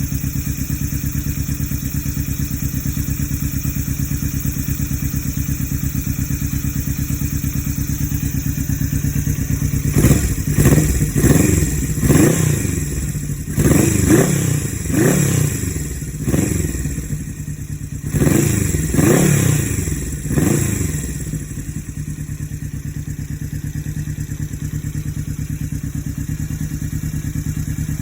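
Yamaha XS250 air-cooled parallel-twin four-stroke motorcycle engine idling steadily through an aftermarket 'umber' crossover exhaust with baffles fitted. About ten seconds in the throttle is blipped repeatedly, roughly a dozen short revs that rise and fall, and then it settles back to a steady idle.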